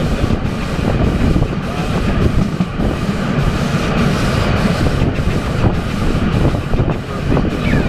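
Riding noise from an open carriage of the Adler replica steam train at speed: a loud, steady rumble of wheels on the rails with wind on the microphone, and a faint pulse about three times a second.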